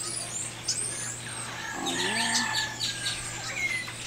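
Several birds chirping and whistling in short, high, sweeping calls, with a person's voice heard briefly about two seconds in.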